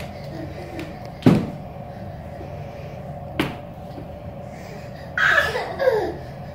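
Folding plastic play-yard panels knocking sharply twice as a toddler pushes and leans on them, over a steady hum. Two short falling squeals follow near the end.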